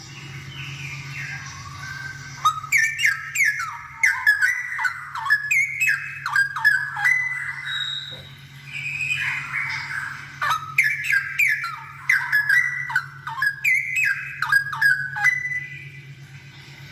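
Straw-headed bulbul singing vigorously: two long runs of rich, rapid whistled notes sliding up and down, with softer warbling between them. A steady low hum runs underneath.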